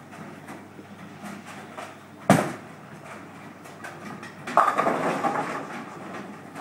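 A bowling ball lands on the wooden lane with a sharp knock a little over two seconds in. About two seconds later the pins crash as the ball hits them, a clatter that trails off, over the background noise of the bowling hall.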